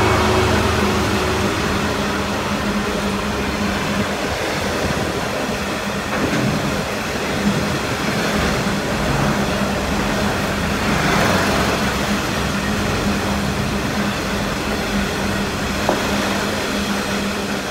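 Long rake of DB Cargo bogie hopper wagons on a stone train rolling steadily past at speed: a continuous rumble of wheels on rail, with a couple of sharp clacks.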